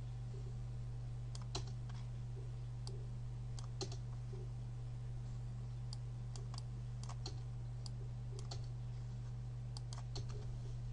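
Computer keyboard keys and mouse clicks: irregular single taps and short clusters of taps, over a steady low hum.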